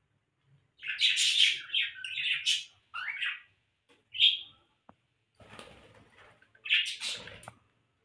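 Caged pet parrots chirping and calling: a loud run of high chirps starting about a second in, a single short call a little after the middle, then more calls near the end.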